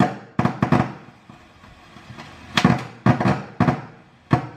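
Trolley speaker crackling with a string of loud, irregular pops through its loudspeaker as circuit ground is touched to a potentiometer's metal shell. The pops are noise from the shell leaking into the signal path, because the potentiometer's tracks leak to its shield casing from damp.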